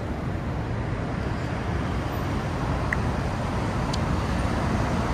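Steady road traffic: the continuous rush of cars passing along a city street.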